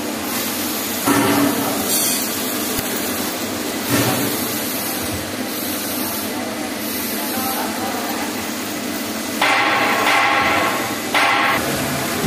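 Metal lathe turning a steel shaft under flowing coolant: a steady machine and coolant hiss, with the cutting tool biting louder about a second in, around four seconds, and in two stronger stretches near the end.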